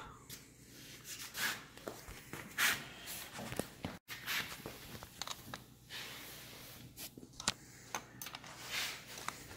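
Wrench turning a nut on a motorcycle carburetor mount: faint scattered clicks, taps and scraping of metal on metal as the nut is worked, with a few sharper knocks.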